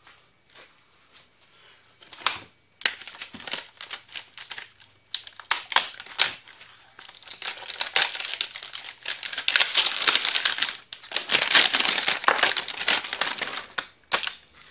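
Plastic packaging crinkling and rustling in the hands as a new chainsaw cylinder and piston are unwrapped. It is faint at first and then goes on almost without a break, busiest in the second half.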